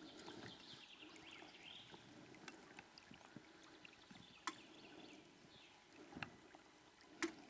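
Near silence: faint water lapping against a small boat, with a few small knocks, one about four and a half seconds in and one near the end.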